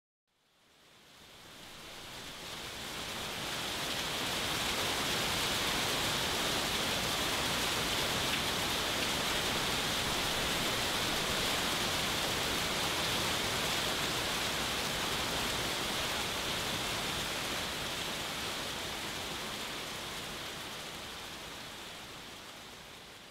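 Steady hiss of rain, fading in over the first few seconds and slowly fading out near the end.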